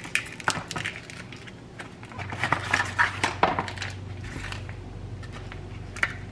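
Packaging being handled: a cardboard box and vacuum-sealed plastic packs crinkling and rustling, with a run of sharp clicks and taps, busiest about two to three and a half seconds in. A low steady hum comes in about two seconds in.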